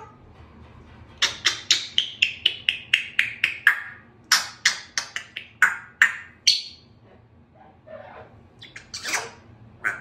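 Congo African grey parrot vocalising: a fast run of about a dozen sharp clicking chirps, about five a second, each a little lower than the last. Then come scattered single chirps and a short whistle, and near the end a few lower, fuller calls.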